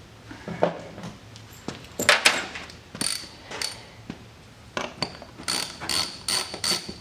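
Hand tools clinking and tapping on the metal bolts and plate of a fuel cell fill plate. There are a few sharp knocks about two and three seconds in, then a run of ringing metallic clicks, about three a second, near the end.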